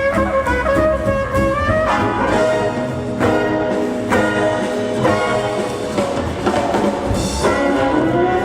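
Show soundtrack music: brass-led band playing held chords with trumpet and trombone.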